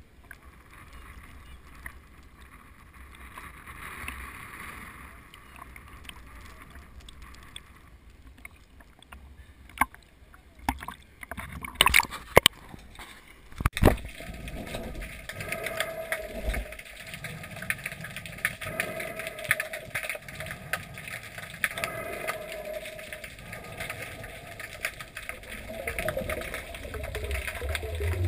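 Seawater sloshing against a GoPro's waterproof housing at the surface, then several sharp loud splashes about twelve seconds in as the camera goes under. After that comes muffled underwater noise with a wavering hum.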